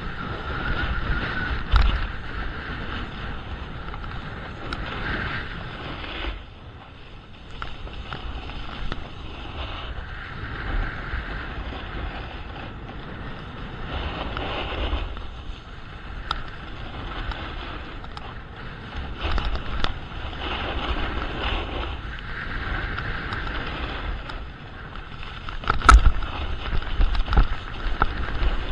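Skis or a snowboard scraping down a groomed slope, the edges hissing across the snow and rising and falling every few seconds with the turns, with wind rushing over the microphone. A few sharp knocks come through, the loudest near the end.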